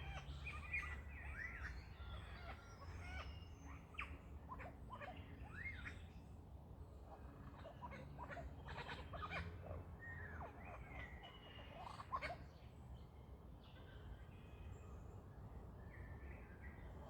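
Lyrebird singing a varied run of quick swooping whistles, broken by several sharp clicks.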